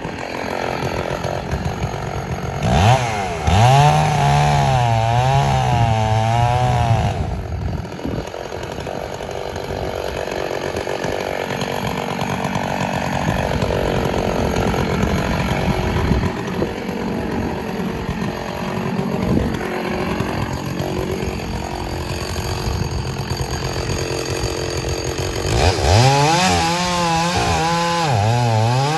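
Stihl 066 two-stroke chainsaw cutting into a large willow trunk. Its engine pitch climbs and wavers about three seconds in, runs lower through the middle, and climbs and wavers again near the end.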